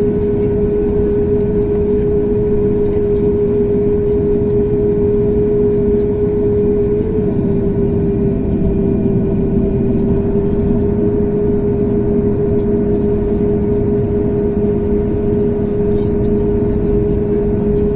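Boeing 737 MAX 8-200 cabin noise from a window seat: its CFM LEAP-1B jet engines and the airflow giving a steady rush with a constant mid-pitched tone.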